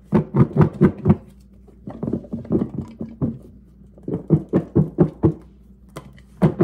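Raw sweet potato chunks thudding and tumbling inside a lidded glass Pyrex bowl as it is shaken hard by hand, coating them in honey, oil and spices. It comes in three bouts of rapid knocks, about four or five a second, with short pauses between.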